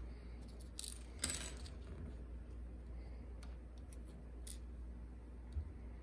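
Scattered light clicks and taps as small metal parts of a Paclock PL410-PRO padlock's brass core are handled and set down with a pin tray. The loudest is a short metallic jingle about a second in.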